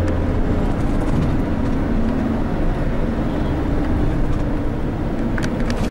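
Shuttle bus running along a city road, heard from inside the cabin: a steady low engine and road rumble, with a few light clicks near the end.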